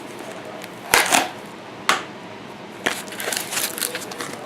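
Packaging being handled while a coin is unwrapped: scattered clicks and crinkling, the sharpest about a second in and again just before two seconds, with lighter clicks later.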